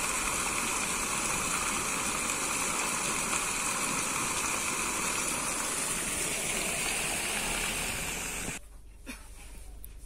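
Fountain water jets splashing down onto a stone sculpture and into the basin: a steady rush of falling water that cuts off abruptly about eight and a half seconds in.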